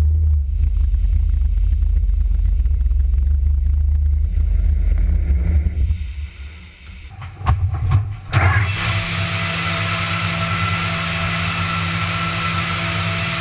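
Machine noise: a steady low rumble that drops away about six seconds in, a few sharp clicks, then a steady whirring hiss with a hum.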